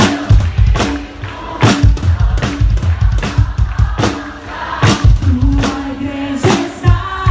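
Live gospel worship band music: a drum kit keeps a steady beat under bass, held notes and singing.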